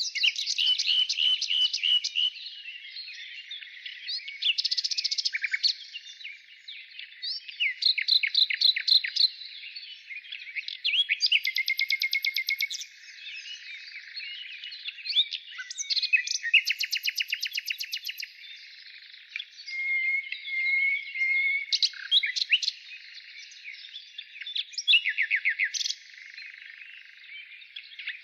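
Wild birds singing: repeated bursts of rapid chirping trills, each a second or two long, every few seconds, over a steady background of fainter bird chatter.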